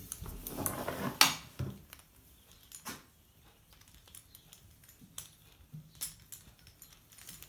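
A bridle rein being handled and threaded through its loop: rustling of the strap with a few sharp clicks of the fittings, the loudest about a second in, then scattered single clicks.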